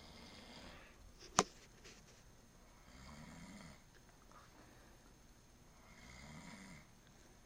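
A person snoring in sleep, three slow snores about three seconds apart. A single sharp click about a second and a half in.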